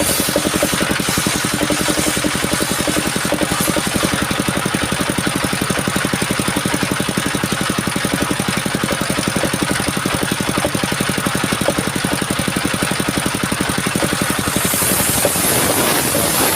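Engine of a homemade mobile circular-saw sawmill running steadily with a rapid, even pulse. About two seconds before the end a louder high hiss comes in over it.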